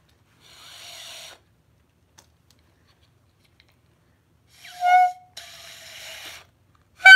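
Clarinet mouthpiece with reed blown on its own: first breathy air with no note, then a short, really loud high squawk of a note about five seconds in, more breathy air, and another short loud note at the very end.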